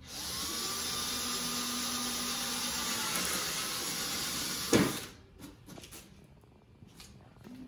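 Cordless drill running steadily for about five seconds, its bit boring a dowel-peg hole through the corner of an old wooden window sash into the tenon of its joint. It ends with one sharp knock, followed by a few light clicks.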